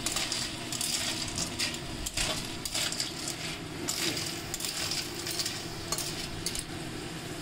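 Snails in their shells being stir-fried in a metal kadhai with a wooden spatula: the shells click and scrape against each other and the pan, irregularly, over a steady sizzle of hot oil.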